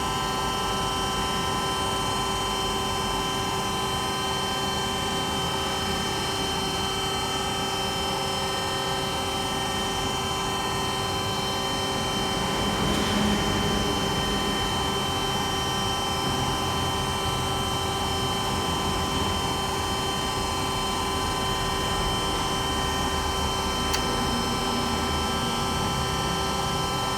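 Edwards iH600 dry vacuum pump running steadily on a test run after its overhaul: an even hum with several constant whining tones. It swells briefly about halfway through.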